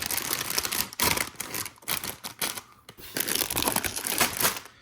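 Sealed plastic bags of LEGO Technic parts being handled and sorted, crinkling and rustling with irregular clicks and taps.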